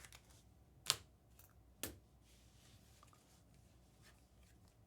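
Trading cards being handled: two short, sharp clicks about a second apart, with a few faint ticks in a quiet room.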